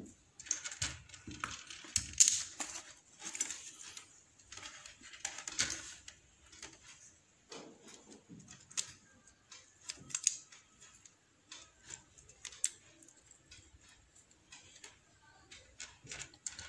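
Irregular clicks, taps and short rustles of hands handling a plastic switch-socket plate and its wires. They are busier in the first few seconds and sparser after.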